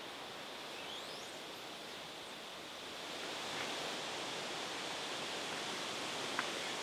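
Steady outdoor rustling noise in open countryside, growing a little louder about three seconds in, with a faint high rising chirp about a second in and a short sharp click near the end.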